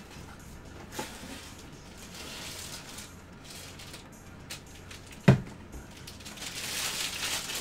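Plastic sleeve rustling and crinkling as a baseball bat is slid out of its cardboard shipping tube and handled, growing louder near the end. A single sharp knock about five seconds in.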